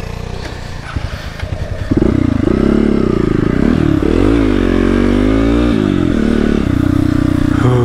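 Motorcycle engine running at low revs, then much louder from about two seconds in as it is revved. The pitch rises and falls in the middle, then it holds steady near the end.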